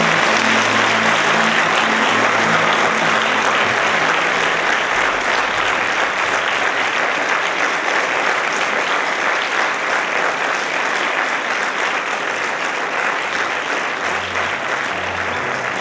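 Audience applauding: dense, steady clapping of many hands. Music plays under it at first and fades, then comes back near the end.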